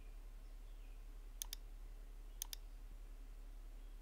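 Computer mouse clicks: two pairs of quick clicks, about a second apart, over a faint steady low hum.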